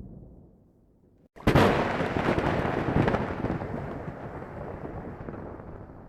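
The fading end of one thunder rumble, a brief silence, then a thunderclap: a sudden sharp crack about a second and a half in, followed by a rolling rumble that slowly dies away.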